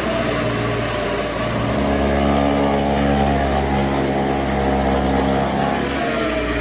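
Engine running the silage machine; its speed sags about two seconds in and picks up again near the end.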